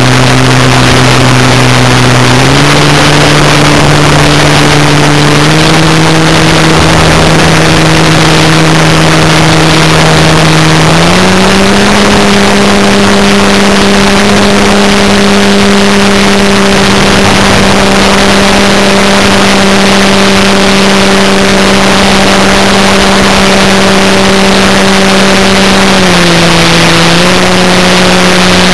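Electric model airplane's motor and propeller, recorded from a camera on the plane, with a steady rush of air. The drone steps up in pitch three times as the throttle is opened further, then dips briefly near the end before coming back up.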